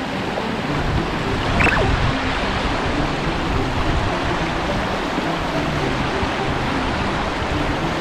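Small mountain stream rushing over boulders and through a short cascade, a steady wash of water.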